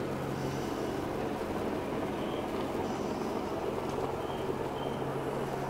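A steady low engine-like hum over a continuous rush of noise, with faint short high chirps now and then.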